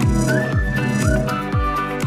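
Electronic outro music with a steady kick drum about twice a second and a gliding synth melody over it.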